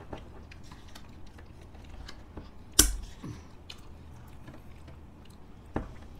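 Spoons scraping and tapping in plastic ice-cream cups: a run of small clicks, with a sharp louder knock about three seconds in and another near the end.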